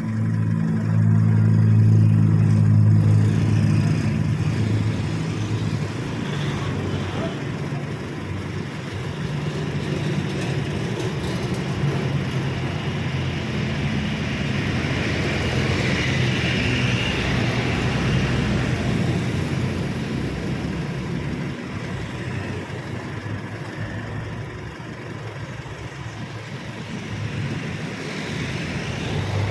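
Motor vehicle engines running with traffic noise, one nearby engine loudest in the first few seconds before easing off into a steadier hum.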